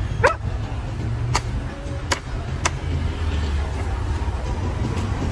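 Four sharp cleaver chops as a husked young coconut is trimmed, all within the first three seconds, over a steady low engine rumble.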